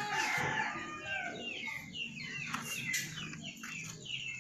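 Chickens clucking and birds chirping in quick, repeated short falling calls, with a brief rustle of handling at the start.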